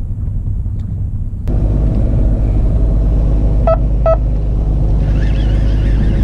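Fishing boat's engine throttling up about a second and a half in, then running on with a steady drone. Two short beeps sound about two seconds later, and a rush of water starts near the end.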